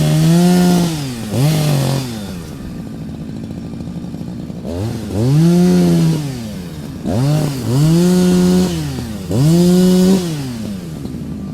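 Chainsaw engine idling and being revved over and over. The pitch rises and falls back about six times: short blips near 1.5 s and 7 s, and longer revs held for about a second each, including one near the end.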